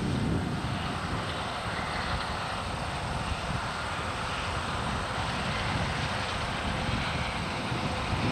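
John Deere 9600 combine harvesting soybeans, its diesel engine and threshing machinery running with a steady drone heard across the field.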